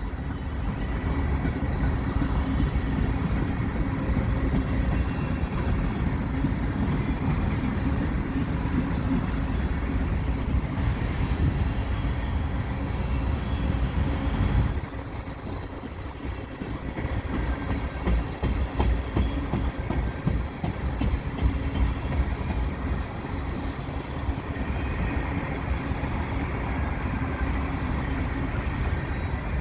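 Freight cars of a slow-moving mixed freight train rolling past: a steady rumble of wheels on rail with irregular clacking. It eases off briefly about halfway through, then picks up again.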